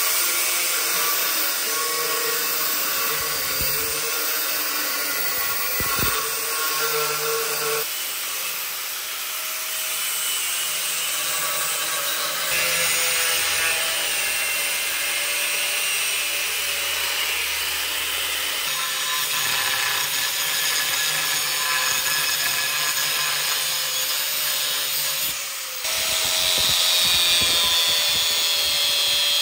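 Electric power tools grinding and sanding steel, in several short segments, each with a steady running motor whine over the rasp of metal being worked.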